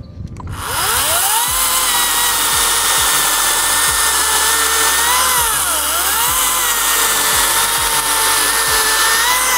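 Greenworks 60V battery chainsaw cutting through a log: the electric motor spins up about half a second in to a steady high whine over the rasp of the chain in the wood. Its pitch sags briefly about halfway through and then recovers.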